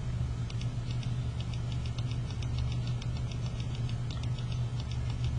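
A steady low electrical hum with faint, fast, evenly spaced ticking over it.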